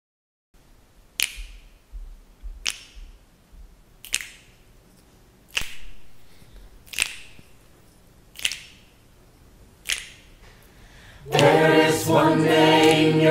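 Finger snaps keeping a slow beat, seven of them about a second and a half apart. About two seconds before the end, a choir comes in singing a cappella.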